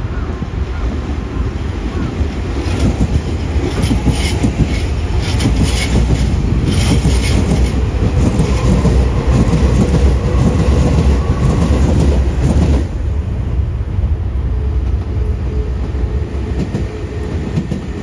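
Nankai 11000 and 30000 series electric train running through the station without stopping, its wheels clattering over rail joints in a quick rhythm. The rumble grows louder, then drops off sharply about 13 s in as the last car goes by.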